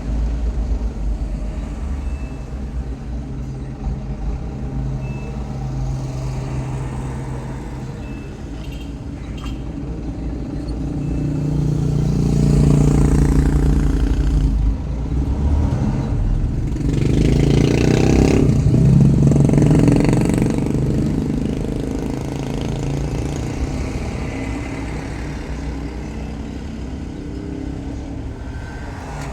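Motor vehicle engine and road noise, a steady low rumble that swells twice as if vehicles pass close by.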